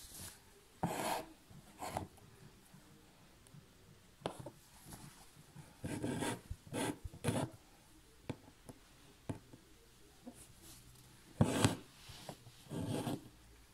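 Single strand of embroidery floss and its needle pulled through fabric stretched taut in a hoop: several short rasping pulls of about half a second each, with light taps of the needle between.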